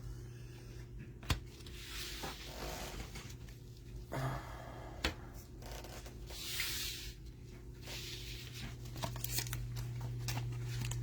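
Trading cards and their packaging being handled: several short stretches of tearing and rustling with small clicks, over a steady low hum.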